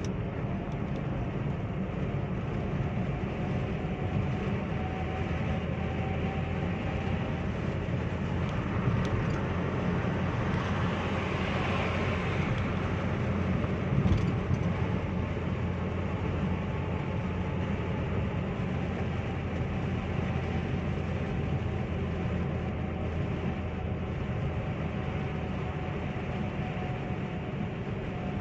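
Steady engine and tyre drone heard inside the cabin of a Chevrolet Spin 1.2 LT cruising on a highway. About ten to thirteen seconds in, another car passes close with a rising and fading rush, followed by a brief thump.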